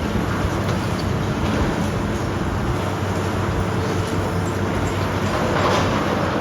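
Heavy demolition machinery running steadily with a low diesel drone, and a louder noisy burst near the end.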